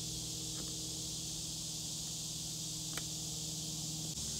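Two faint metal clicks as a crescent wrench works on a battery terminal, over a steady low hum and a constant high insect buzz.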